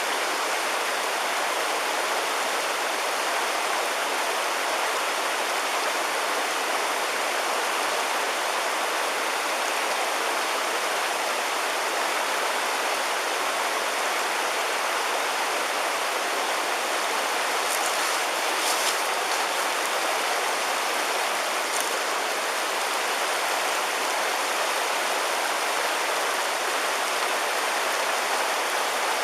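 River water rushing steadily over rocks in a shallow mountain stream, an even, unbroken rush. A couple of faint, brief high ticks come about two-thirds of the way through.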